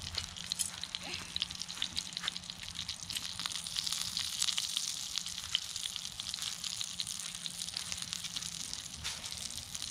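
Steak frying in butter in a cast iron skillet: a steady sizzling hiss dotted with many small pops and crackles.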